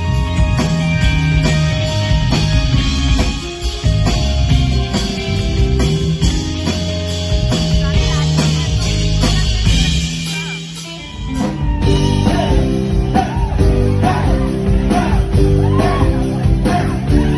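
Live band music with drums, bass and guitar; the sound thins briefly about ten seconds in, then a lead vocal sings over the band for the rest.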